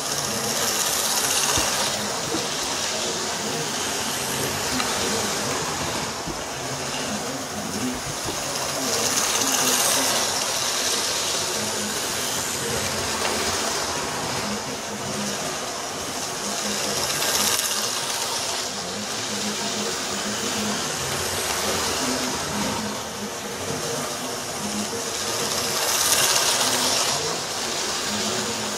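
Model railway trains running round a small loop of track: electric motors whirring and wheels running on the rails, the sound swelling about every eight seconds as a train passes close by.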